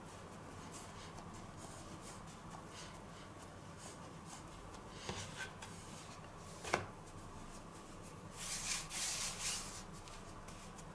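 Hands pressing and pushing out floured pizza dough on a wooden cutting board: faint rubbing and scraping, with one sharp tap about halfway and a louder scraping, rustling stretch a couple of seconds later.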